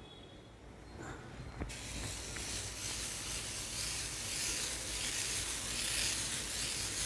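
Thin streams of batter sizzling as they are drizzled in spirals from a jalar cup onto a hot nonstick tawa: a steady hiss that starts abruptly about two seconds in, after a quiet start with a faint click.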